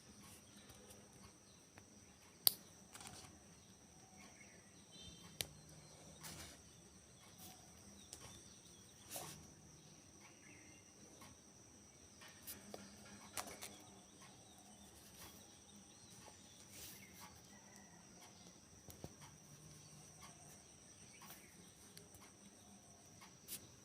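LEGO bricks being handled and pressed together: scattered short plastic clicks and taps, the loudest about two and a half seconds in, over a faint steady high-pitched hum.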